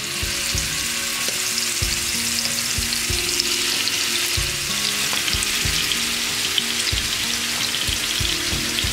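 Marinated chicken boti kebabs on wooden skewers frying in hot oil in a frying pan: a steady sizzle with spitting crackles as the meat cooks.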